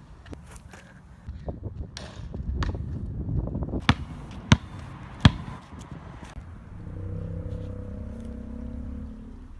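A run of knocks and thuds over a low rumble, three of them sharp and loud about four to five seconds in, then a low humming drone setting in about seven seconds in.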